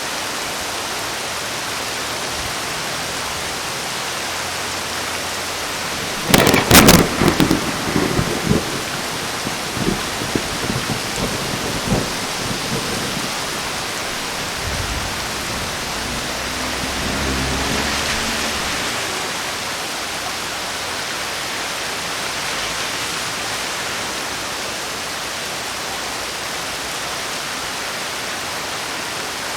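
Heavy rain falling steadily throughout. About six seconds in comes a loud, close thunderclap: a sharp crack followed by crackling rumbles over several seconds. A lower, softer rumble of thunder swells and fades a few seconds later.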